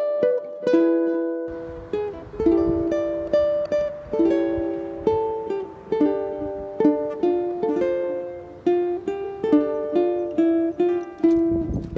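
Solo ukulele playing a plucked melody over chords in a steady rhythm.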